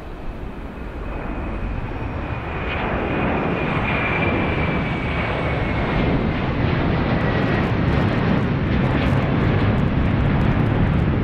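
Jet engines of a twin-engine widebody airliner at takeoff power as it climbs out and passes low overhead. The sound grows louder over the first few seconds, with a high whine that slides slowly down in pitch as the jet goes over, leaving a deep rumble.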